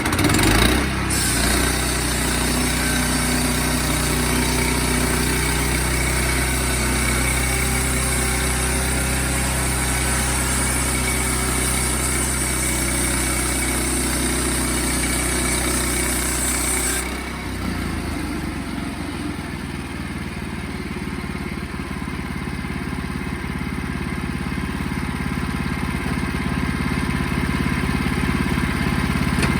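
Sawmill engine running under load with the blade cutting through a log, a high hiss over the engine. About seventeen seconds in the cutting stops and the engine drops to a lower, steady run.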